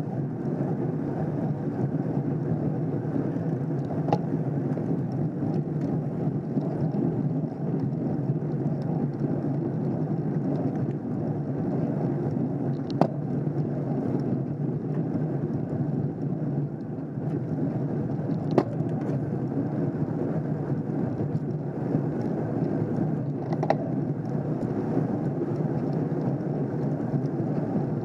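Steady rushing noise of wind and road-bike tyres on asphalt, heard by a camera riding in a pack of racing cyclists, with a few brief sharp clicks.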